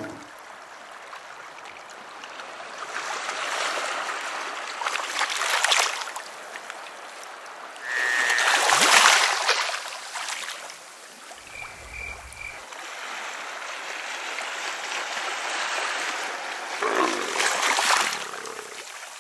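Sea water washing in and drawing back: a steady rush that swells and fades several times, the loudest swell about nine seconds in.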